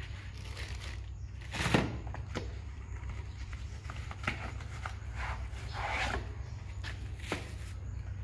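Unboxing handling noise: a knock about two seconds in, then scattered light taps and the rustle of a small cardboard box being opened, over a steady low rumble.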